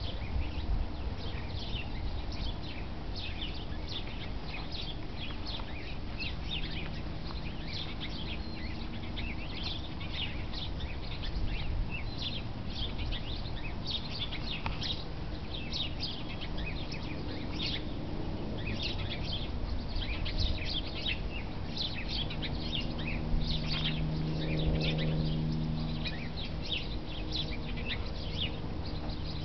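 Many small birds chirping and twittering continuously, with a low steady hum underneath that swells for a couple of seconds near the end.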